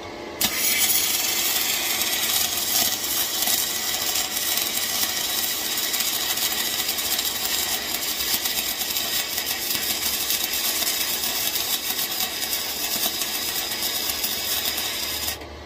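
Aluminum MIG welding arc from a spool gun: a steady, loud crackling hiss that strikes about half a second in, runs as one continuous bead, and cuts off abruptly just before the end.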